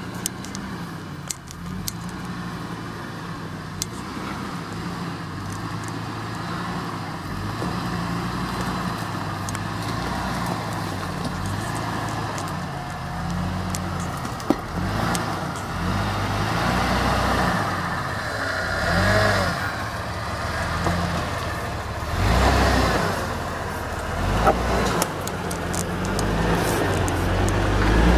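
Lifted Jeep Cherokee XJ's 4.0-litre inline-six running under load while crawling over a log and rocks. The revs rise and fall in several surges, and the engine grows louder as it comes close near the end. A few sharp clicks and knocks are heard along the way.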